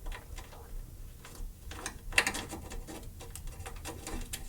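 Light clicks and rustling of turn-signal wiring and plastic connectors being handled and fed through a hole, with one sharper click a little past two seconds in.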